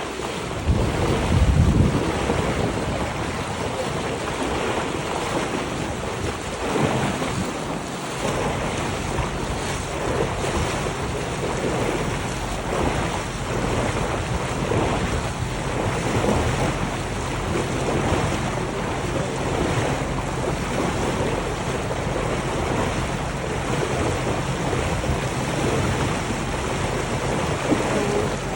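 A motorboat under way on a lake: water rushing along the hull and wind buffeting the microphone, with a strong gust about two seconds in. A steady low engine hum runs under it from about seven seconds in.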